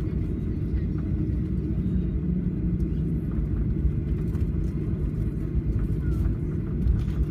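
Steady low rumble of a Boeing 737 rolling on the ground after landing.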